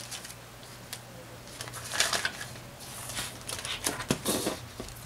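Paper banknotes rustling and a plastic cash-binder pocket being handled as the counted bills are put away and the binder is turned to the next envelope, in a few short rustling bursts about two seconds in and again around four seconds in.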